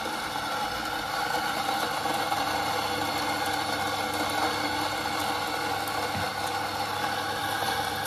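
Rocket Faustino electric espresso grinder running steadily, grinding coffee beans straight into the portafilter for a single shot.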